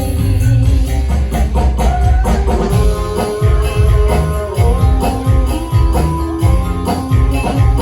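Instrumental band music with a steady beat, percussion and sustained melody notes.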